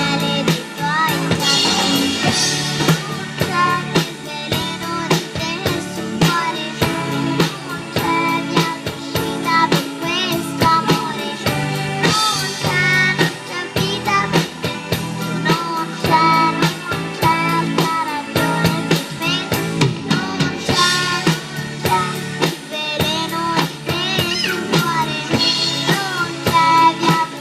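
A song with a singing voice over a steady drum-kit beat.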